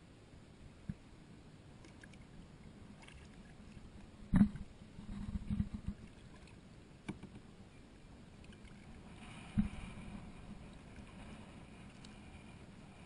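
Paddling a plastic kayak: paddle blades dipping and dripping water, with a few sharp knocks, the loudest about four seconds in and another near ten seconds, and a splashier stretch of strokes around nine to eleven seconds.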